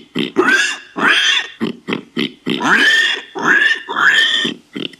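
Warthog vocalizing: a rapid series of short grunting calls, about three a second, stopping just before the end.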